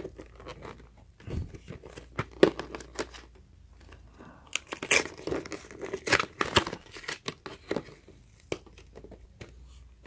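Clear plastic blister packaging crinkling and crackling as hands press and pull at it: an irregular run of crackles and snaps, thickest in the middle.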